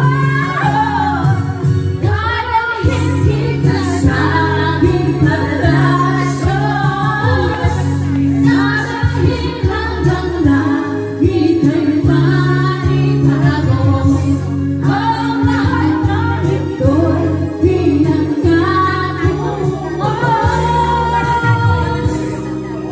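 A woman singing a song over instrumental backing music, the melody carried by one female voice.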